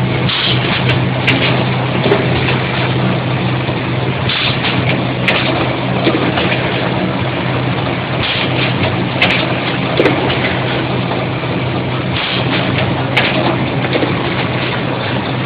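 Automatic case making machine running: a steady mechanical hum with short hissing bursts every second or two, and a sharp click about every four seconds as the machine cycles.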